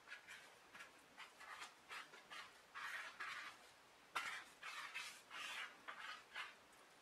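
Hands rubbing and patting a floured dough roll on a silicone baking mat as it is rolled up and shaped: a run of short, faint rustles with a sharper tap about four seconds in.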